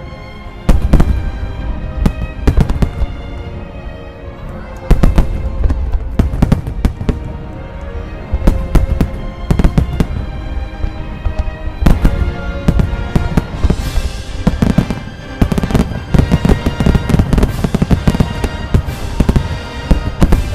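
Starmine fireworks: aerial shells bursting in quick succession with heavy booms, building to a dense barrage of bursts in the second half, over music.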